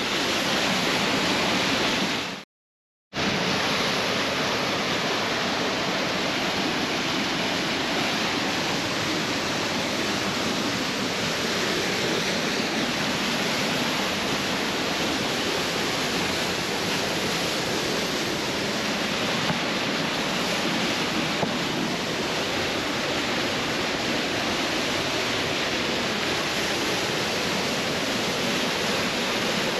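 Steady rushing roar of a large waterfall close by, with no change in level. The sound drops out completely for about half a second near the start.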